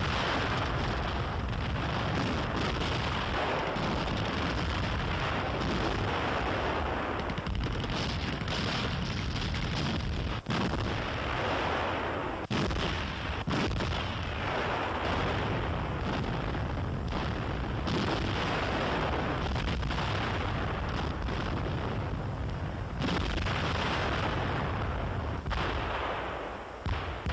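Artillery barrage: continuous firing of heavy guns and shell explosions, with a few sharper cracks standing out around the middle.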